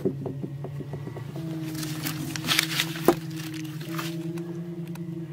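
Background music: a low drone of held notes. A brief rustle and one sharp knock come about two to three seconds in.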